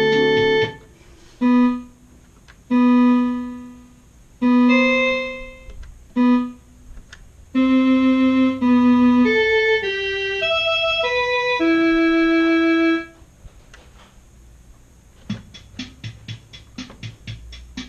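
Yamaha PSS-170 portable keyboard played through a guitar amplifier and speaker cabinet: several single held notes, then a quick stepping run of notes. About fifteen seconds in, a fast percussive rhythm pattern starts.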